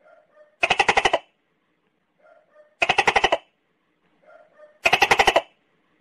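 Tokay gecko calling: three loud calls about two seconds apart, each a half-second rapid train of pulses led by a softer, shorter note.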